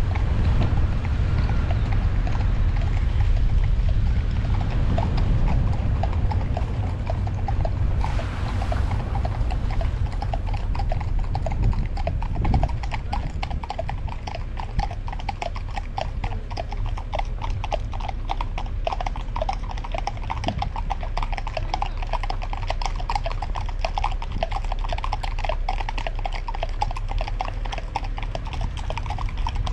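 Horses' hooves clip-clopping in a quick, dense run of clicks that become clearer after the first several seconds, over the steady low rumble of the car and road.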